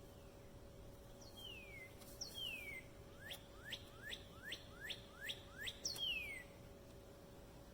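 A songbird singing clear whistled notes: a few slurred notes falling in pitch, then a quick run of about seven rising whistles, then another falling slur. A steady faint hum runs beneath.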